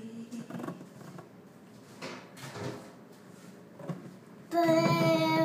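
A few faint knocks on the counter, then about four and a half seconds in a toddler lets out a loud, held 'aah' on one steady pitch for about a second.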